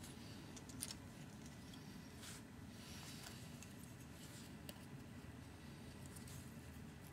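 Faint clicks and rustles of parchment paper and small craft tools being handled on a glass work sheet, the sharpest click about a second in, over a low steady room hum.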